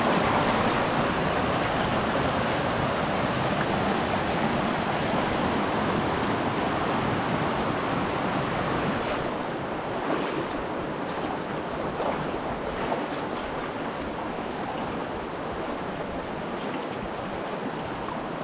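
Steady rush of a mountain creek's water running over rocks. It eases and grows softer about nine seconds in.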